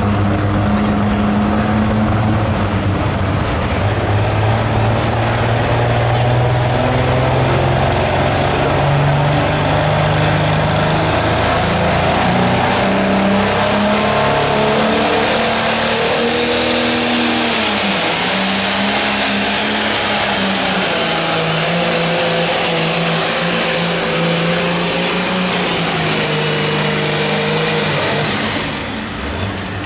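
Super stock pulling tractor running at high revs under heavy load. From about midway, an International 1066 drags the weight-transfer sled, its turbocharged diesel note shifting up and down through the pull.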